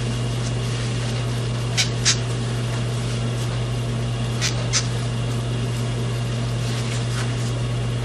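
Steady low hum, with two pairs of short sharp clicks, about two seconds and four and a half seconds in.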